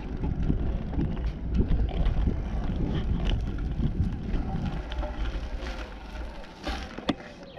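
Strong wind buffeting a bicycle-mounted camera's microphone while riding, an uneven low rumble. It eases after about five seconds as the bike slows, with a couple of short knocks near the end.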